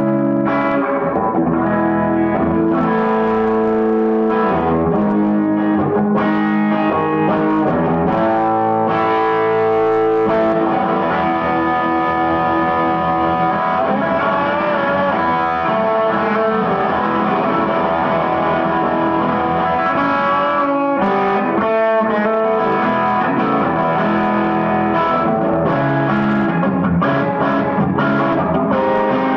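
Nik Huber Dolphin electric guitar played through a 3 Monkeys Grease Monkey amplifier: a continuous passage of chords and single notes.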